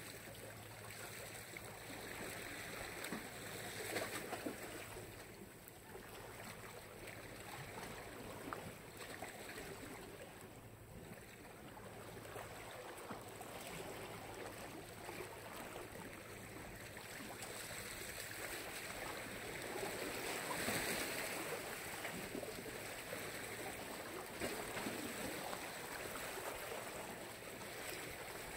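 Sea waves washing ashore: a steady hiss of surf that swells about four seconds in and again around twenty-one seconds.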